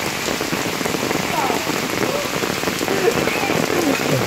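Heavy rain pouring steadily onto shallow floodwater covering a street.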